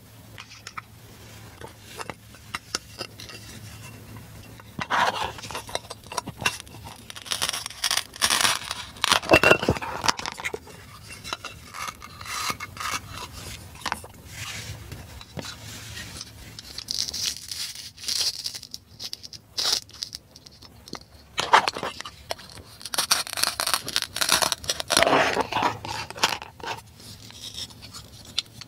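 Plastic toy cutting-fruit pieces being handled: their Velcro-joined halves pull apart in short rough tearing bursts, mixed with clicks and scrapes of the plastic knife and pieces against a plastic cutting board. The bursts come irregularly, with the busiest stretches a third of the way in and again near the end.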